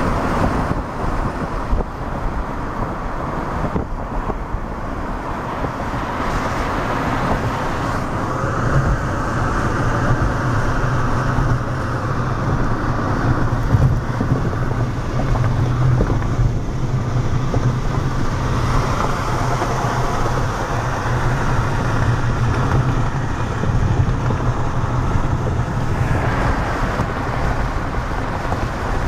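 Steady rushing road and wind noise from a moving car, with a low drone that comes up about a third of the way in and fades near the end.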